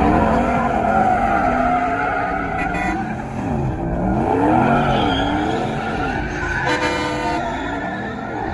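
Ram 1500 pickup doing donuts, its engine revving up and down over and over while the spinning rear tyres squeal on the pavement.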